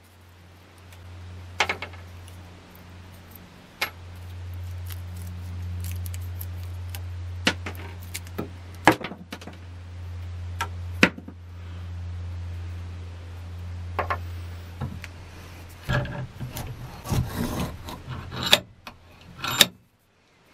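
Hands handling small rusty metal parts and an old hammer head. Scattered sharp clicks and light metallic clinks, busier for a few seconds near the end, over a steady low hum.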